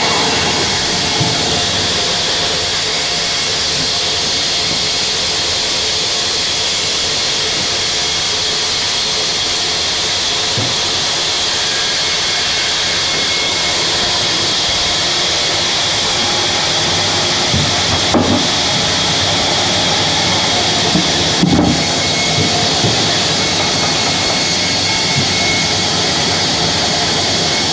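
Large band saw running steadily as its blade cuts through a log round, with a couple of short knocks about two-thirds of the way through.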